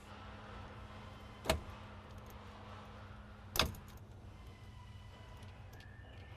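Two short, sharp clicks about two seconds apart: wire terminals being pulled off the back of a vintage Chevy headlight switch.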